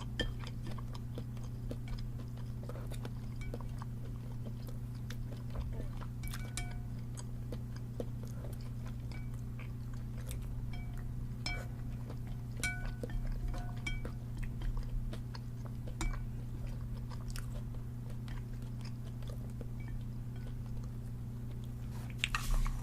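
A person eating: quiet chewing and mouth sounds with scattered small clicks and a few short, light clinks of utensils against a bowl, over a steady low hum.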